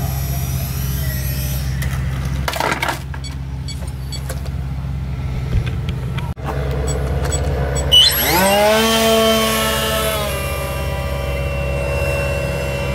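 Electric motor and propeller of a foam RC triplane throttling up for takeoff about eight seconds in: a quickly rising whine that levels off into a steady high buzz, over a steady low rumble.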